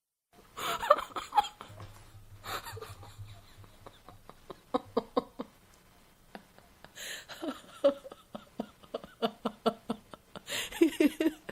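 A woman laughing in runs of quick, pulsing ha-ha bursts, broken several times by loud gasping in-breaths.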